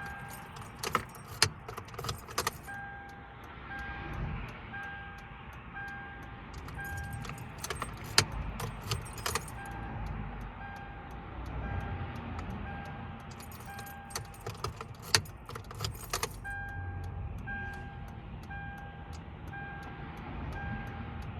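A car's warning chime beeping about twice a second, interrupted three times by bursts of jangling keys and sharp clicks as the key is worked in the ignition. No engine cranks or starts, and a low traffic rumble runs underneath.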